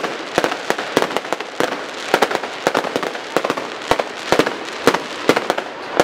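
Fireworks going off in quick succession: sharp bangs and pops, several a second at irregular intervals, over a steady crackle.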